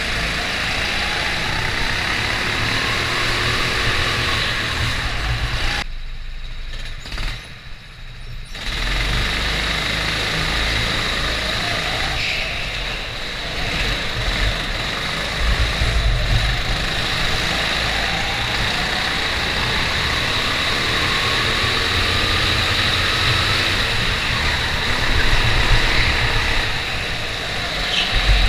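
Go-kart engine running at speed, recorded from on board the kart. Its note rises and falls through the corners over a steady rush of wind and tyre noise, and the sound dips sharply for about two seconds around six seconds in.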